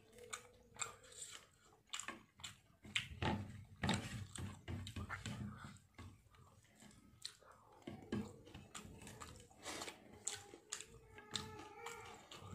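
Close-up eating sounds from a person eating rice and fish by hand: wet chewing and repeated mouth smacks and clicks.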